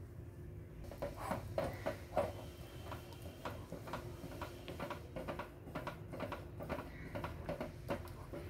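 Wooden paddle stirring thick rice-flour and sugar-syrup dough in a steel pot: irregular soft knocks and scrapes of the paddle against the pot, a few each second.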